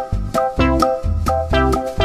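Background music: a light tune of quick, short pitched notes, several a second, over a bass line.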